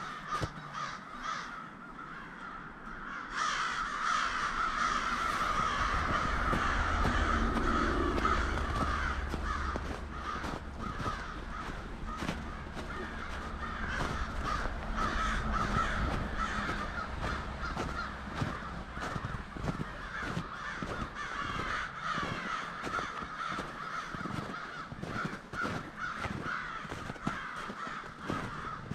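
A large flock of American crows cawing continuously, many calls overlapping into a dense chorus that gets louder about three seconds in.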